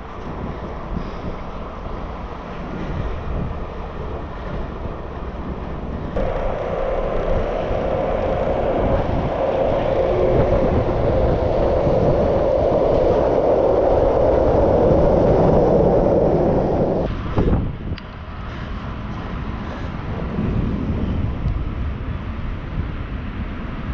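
Wind buffeting the microphone and tyre noise from a road bike riding on a paved path. From about six seconds in until about seventeen seconds a louder steady rumble sits over it, then drops away.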